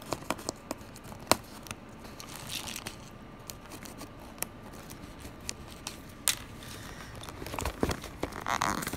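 Package opening by hand: sharp clicks and snips as the string ties holding the packaging are cut, with plastic and paper crinkling. The loudest snap comes about a second in, and a longer spell of crinkling near the end.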